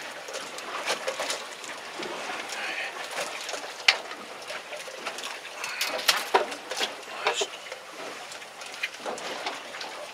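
Scattered knocks, taps and rustles from handling a large freshly cut yellowtail against a boat's plastic deck, with one sharp knock about four seconds in.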